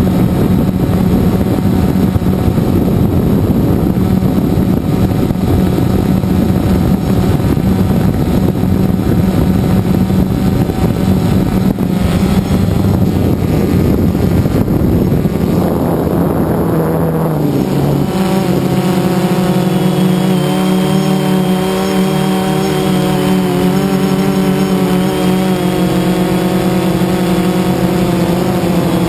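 Drone motors and propellers whirring continuously, heard close up through the camera carried on the drone. About two-thirds of the way through the pitch wavers, then settles into a clearer, steadier hum.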